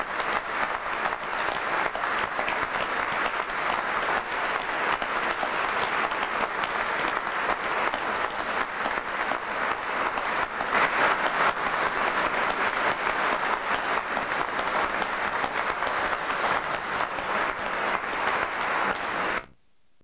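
Audience applauding, a dense steady patter of many hands clapping, which cuts off suddenly near the end.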